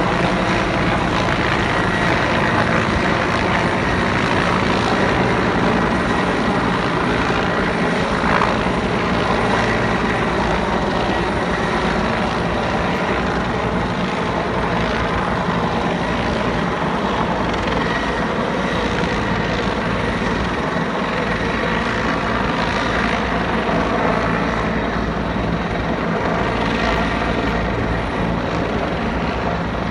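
Police helicopter circling low overhead: a steady, continuous rotor beat with engine noise, loud throughout.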